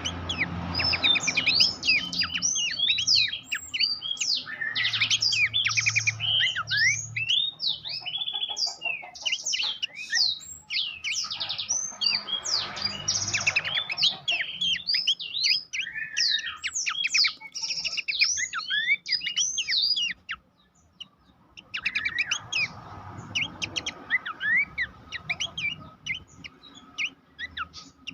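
Pelanduk semak babbler singing a dense, fast run of chirps, trills and whistled notes, with a brief pause about two-thirds of the way through.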